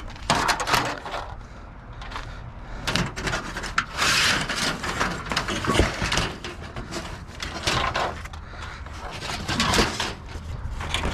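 Rummaging through scrap in a dumpster: irregular clattering, scraping and knocks as pieces are shifted and pulled out.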